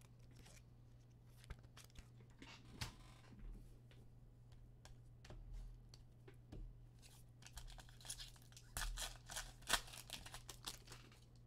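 Foil trading-card pack being torn open and handled: scattered small rustles and scrapes, then a run of tearing and crinkling of the foil wrapper in the last few seconds.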